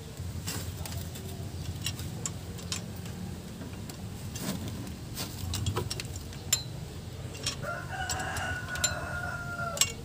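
A rooster crows once, a single call of about two seconds starting a little past the middle. Scattered light metallic clicks come from a wrench being worked on the engine's cylinder head bolts.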